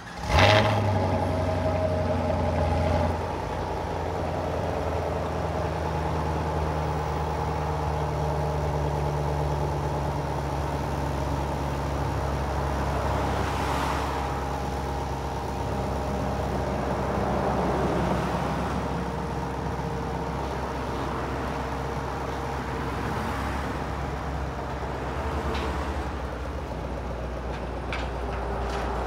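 Car-carrier truck's engine running steadily, a little louder for the first three seconds, as its hydraulic upper deck lowers the car, with a few faint sharp clicks about halfway through and near the end.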